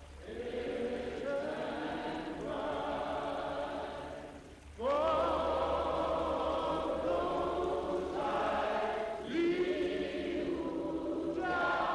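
A choir of voices singing in long held notes, phrase by phrase, growing louder about five seconds in, over a steady low hum.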